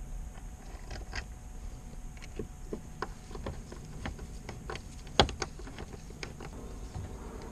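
Scattered small clicks and taps of hand work on the remote control fittings at the side of the helm console, with one sharper knock about five seconds in.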